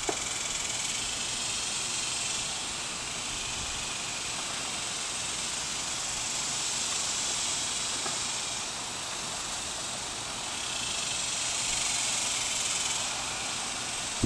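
Steady hiss of a bee vacuum drawing honeybees off a hive through its hose, swelling and easing a few times.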